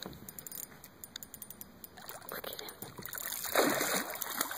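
A hooked brown trout thrashing and splashing at the water's surface during the fight, building from about two seconds in to a loud splash near the end. Quick light ticks come before it.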